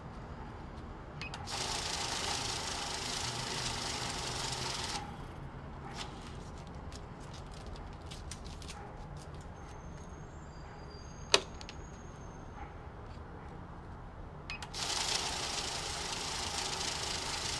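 Safescan banknote counter running stacks of $100 bills through its feed, a steady rapid whir, twice: starting about a second and a half in for some three seconds, and again for the last few seconds. Between runs, paper bills are handled, with one sharp click.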